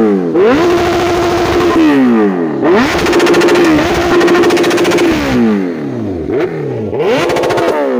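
Kawasaki Z900's inline-four revved hard while standing still, about four times. Each rev climbs quickly and is held at a steady, fluttering peak, the longest for about two seconds, before the revs drop back. The bike wears a modified exhaust that has already drawn a police fine.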